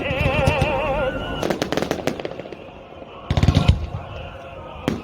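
Fireworks salute going off: booming bursts and crackling in clusters, loudest a little over three seconds in. A warbling tone sounds through the first second.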